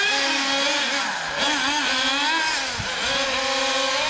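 Small nitro two-stroke glow engines of several HPI MT2 RC trucks running at high revs together, their pitches rising and falling as the trucks accelerate and back off around the track, with one engine's pitch dropping sharply about three seconds in.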